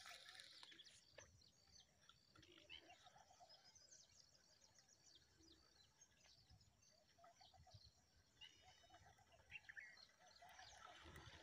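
Near silence, with faint, scattered chirps of distant birds.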